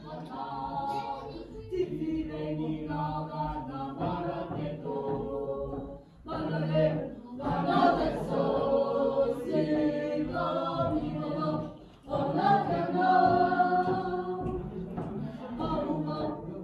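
A choir singing in held, harmonised notes, in phrases that break off briefly about six and twelve seconds in.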